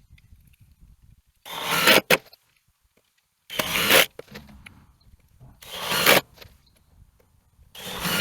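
Hand saw cutting a wooden board in slow strokes, one rasping stroke about every two seconds, each swelling over half a second and stopping short.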